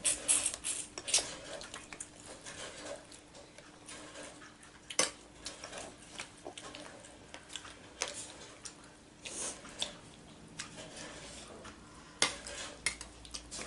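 Spoons and forks clinking and scraping against bowls during a meal: scattered light clicks, a few sharper ones, over a faint steady hum.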